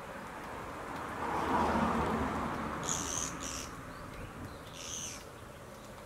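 Three short buzzy calls, two close together about three seconds in and one near five seconds, fitting the harsh 'gee' call of a Japanese pygmy woodpecker. Under them a broad rushing noise swells, loudest about two seconds in, then fades.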